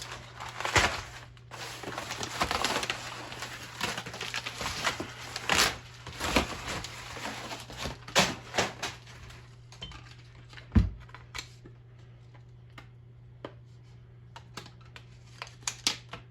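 Rustling and clattering of things being handled and unpacked, with many sharp clicks and knocks, one heavy thump about eleven seconds in, then a few scattered clicks over a steady low hum.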